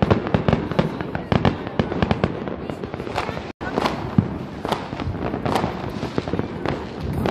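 Street fireworks and firecrackers going off in a dense, rapid barrage of bangs and crackles, with a momentary break about halfway through.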